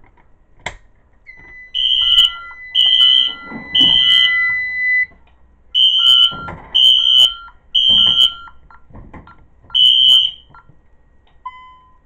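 Fire alarm sounder going off in the temporal-three evacuation pattern: a high tone in three half-second pulses, a pause, three more pulses, then the start of a third round. A steady lower beep runs under the first group of pulses, and a single click comes just before it all starts.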